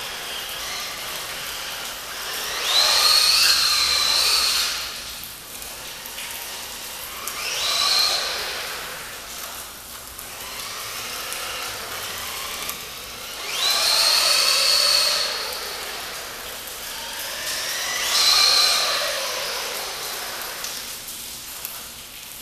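Brushless electric motor and gears of a 2S-powered RC truck whining at full throttle in four bursts, the pitch climbing as it speeds up and falling away as it slows, about three, eight, fourteen and eighteen seconds in, with a quieter whir between.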